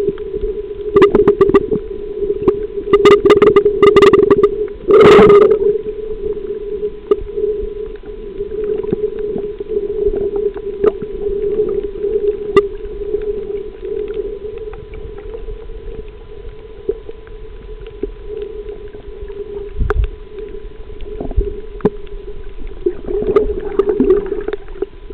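A snorkeler breathing through the snorkel and blowing water out of it, heard through an underwater camera. A run of loud gurgling bursts comes in the first five seconds, the biggest about five seconds in, followed by quieter crackling over a steady hum.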